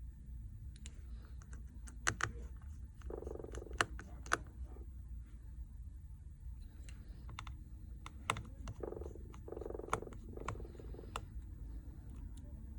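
Small tools clicking and tapping against a smartphone's frame and internal parts during disassembly: scattered sharp clicks, with a few short buzzing stretches, over a low steady hum.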